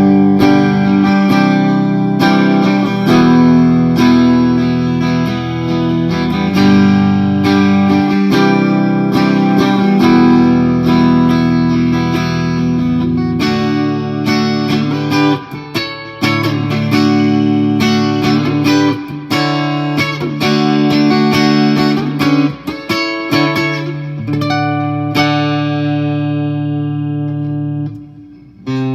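PRS Singlecut electric guitar played clean through its piezo bridge pickup, giving a bright acoustic-guitar-like tone: picked and strummed chords that ring out, amplified through a Marshall JCM2000 head and a 2x12 cabinet. Near the end one chord is left to fade away.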